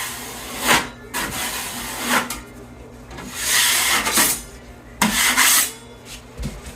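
Drywall knife scraping premixed joint compound across a wall in a few separate up-and-down strokes.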